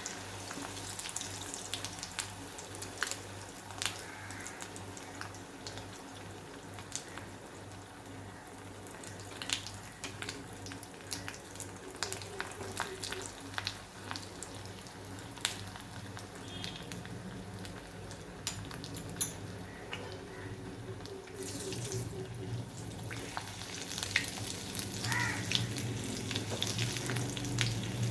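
Food frying in hot oil, a steady sizzle with scattered small crackles and pops.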